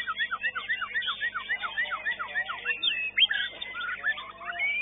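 White-rumped shama (murai batu) song: a fast run of repeated down-slurred whistles, about five a second, giving way to varied whistled phrases after about two and a half seconds.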